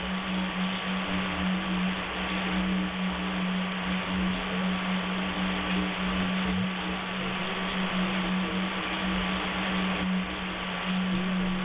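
Shortwave radio reception: a steady low buzz tone under even static hiss, with a fainter thin whistle above it and broken weaker tones drifting in and out.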